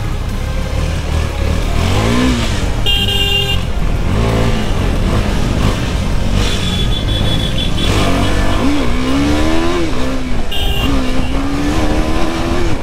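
A KTM Duke's single-cylinder engine accelerating through the gears, its pitch climbing and then dropping at each shift several times. A vehicle horn honks briefly about three seconds in and again near the end.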